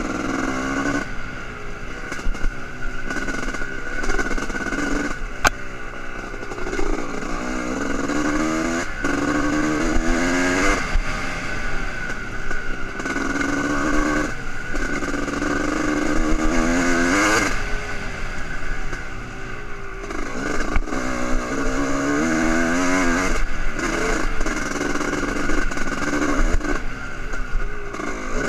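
Honda CR250R single-cylinder two-stroke dirt bike engine being ridden hard, its pitch repeatedly climbing under throttle and then dropping away as the rider backs off or shifts.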